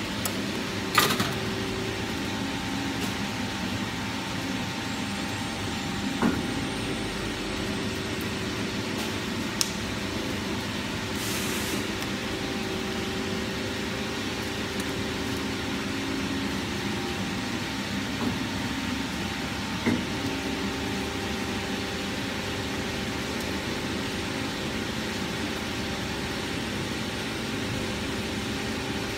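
Two-roll silicone mixing mill running steadily: a continuous motor-and-gear hum holding a few steady tones, broken by a handful of short sharp clicks, the first about a second in.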